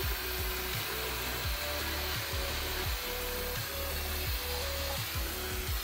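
Aerosol spray can sprayed in one long steady hiss over a cast cylinder head, with background music under it.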